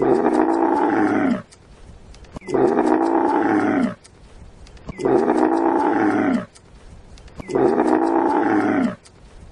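A large animal's drawn-out call, repeated four times at even spacing in identical form, as a looped sound effect. Each call lasts about a second and a half, holds its pitch, then drops at the end.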